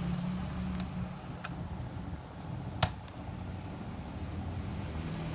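Laptop RAM module being pressed into its SO-DIMM slot: a couple of faint ticks, then one sharp click about halfway through as the module snaps into the retaining latches, over a low steady hum.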